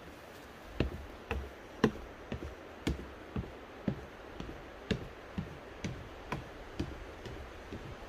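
Footsteps going down wooden stair treads, a light knock about every half second.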